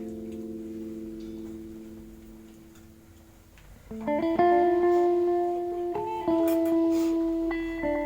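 Background music: held chords that die away over the first three seconds, then new chords come in about four seconds in and change twice more.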